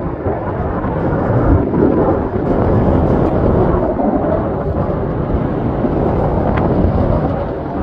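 Twin-engine jet airliner passing overhead: loud, steady jet engine noise, heavy in the low end.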